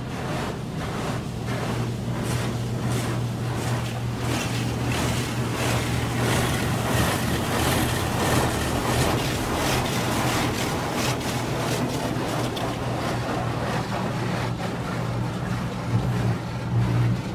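Mercedes-Benz E320 coupe's M104 inline-six running steadily on a cold start after standing unused for two years, briefly louder twice near the end.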